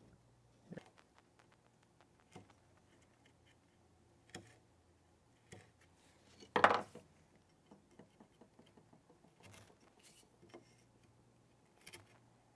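Bench chisel paring the walls of a wooden mortise pocket by hand: quiet, scattered slicing scrapes and clicks as the blade is set and pushed down, with one much louder knock about halfway through.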